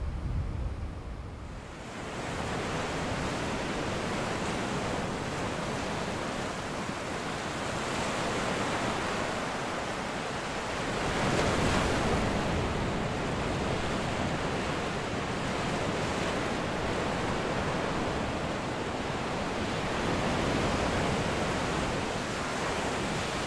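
Ocean surf breaking on a beach: a steady wash of waves that swells louder about eleven seconds in and again near the end.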